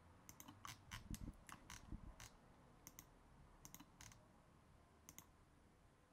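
Faint, irregular clicks of a computer mouse, some in quick pairs, as line segments are placed while drawing in CAD software, with a few soft low thumps among them.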